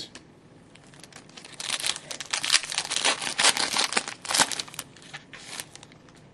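Crinkling and tearing of a trading-card pack wrapper being ripped open and handled, loudest in the middle few seconds.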